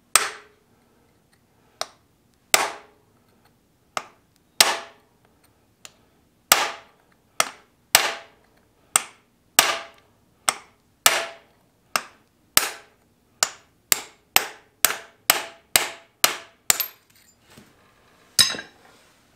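Hammer blows on a steel punch, driving a pin out of a tractor's steering linkage. About two dozen sharp strikes, each ringing briefly: spaced a second or two apart at first, quickening to two or three a second, then a pause and one last blow near the end.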